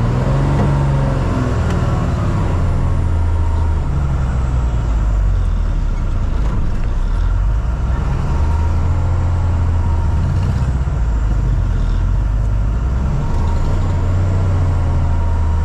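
Loaded truck's diesel engine running at low speed, heard from inside the cab as the truck creeps through a tight turn: a steady low drone that swells a little now and then.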